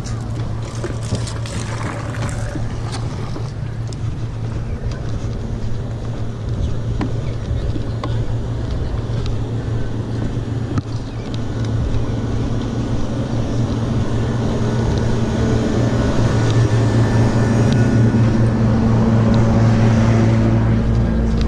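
Steady low hum of an engine running, growing louder over the last several seconds.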